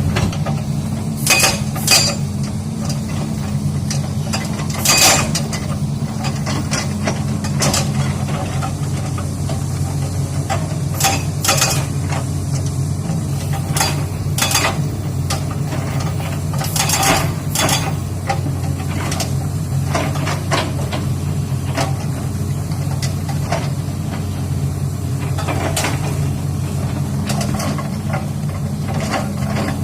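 Excavator engine running steadily, with irregular sharp metallic clanks and knocks as the machine works rock.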